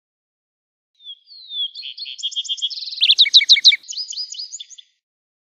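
Lark sparrow singing one song of about four seconds: a short opening note, then a string of varied trills and rapid notes, loudest a little past the middle.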